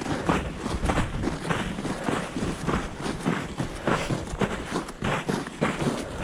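A hiker's footsteps on a mountain trail, short sharp steps at a steady walking pace of about two or three a second, over a constant low rumble.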